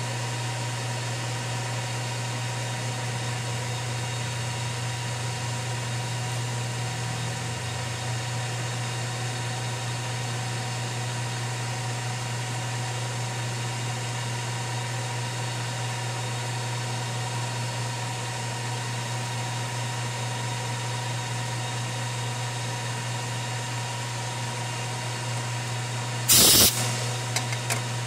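Metal lathe running steadily, a low motor hum with a faint steady whine, while a tool bit works on a small brass part. About two seconds before the end comes a short, loud clatter followed by a couple of light clicks.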